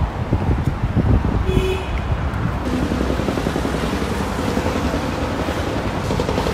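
City street noise of passing traffic, with wind buffeting the microphone as a gusty low rumble that is strongest in the first few seconds before settling into a steadier hum.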